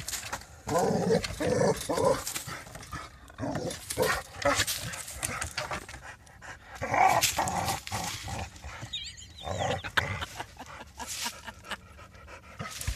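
A dog makes short vocal sounds, several in the first two seconds and again about seven seconds in, with breathing and rustling in between. The dog is worked up at a cat on the other side of the fence.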